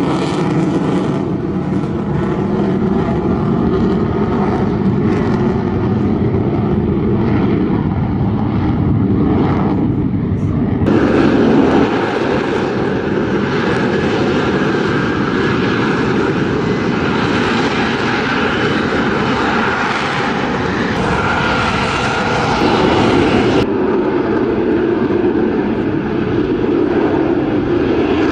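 Jet noise from an F-35B Lightning II's F135 turbofan in flight: a continuous loud rushing roar with a faint steady whine in it, changing character abruptly about eleven seconds in and again near the end.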